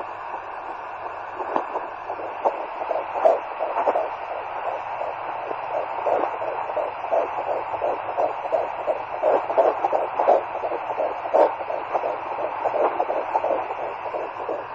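Fetal Doppler monitor picking up a baby's heartbeat at 12 and a half weeks of pregnancy: a quick, regular pulsing over a steady hiss, clearest after the first couple of seconds.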